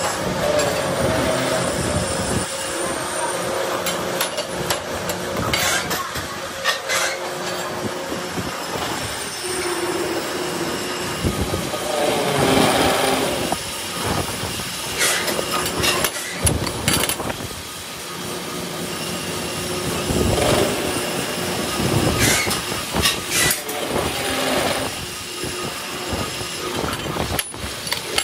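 Metal lathe cutting a steel hex nut in its chuck: a steady machine hum under the scraping and screeching of the cutting tool on the steel. Several sharp metallic clanks come through at irregular moments.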